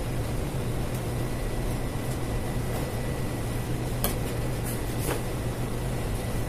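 Steady low machine hum of kitchen equipment running, with a few faint clicks about four and five seconds in as raw chicken pieces are pressed onto a shawarma spit.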